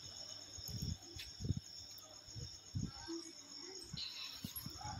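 Crickets chirping steadily in a high, fast-pulsing trill, with scattered faint low thumps and rustles.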